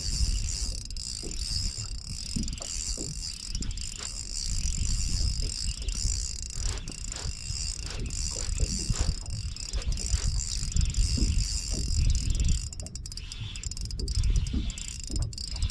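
Spinning reel cranked steadily to wind in a hooked catfish, its gears whirring and ticking, with a heavier run of small clicks near the end. A low rumble sits under it throughout.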